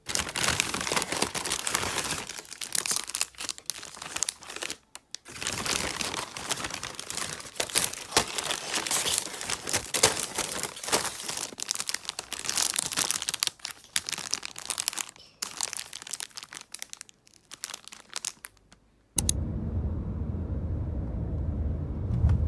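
Paper bakery bag and pastry wrapping crinkling and rustling as pastries are handled and unwrapped, with short pauses. About three seconds before the end this gives way to the steady low rumble of a car cabin on the move.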